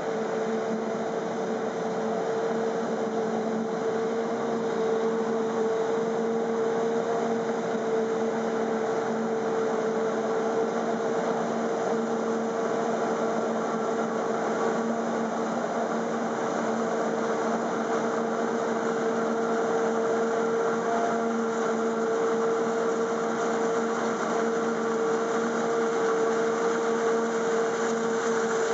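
Claas Jaguar self-propelled forage harvester chopping maize under steady load, together with the engine of the tractor and trailer running alongside. It is a constant machine drone with a steady whine held over it throughout.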